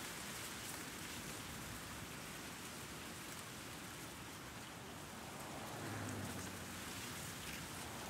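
Steady outdoor breeze, an even hiss, with very light city noise beneath it. A low hum swells briefly about six seconds in.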